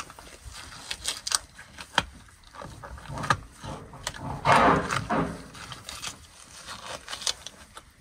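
Rustling and scraping in straw bedding under a ewe in labour, with scattered sharp clicks and a louder rushing noise, under a second long, about four and a half seconds in.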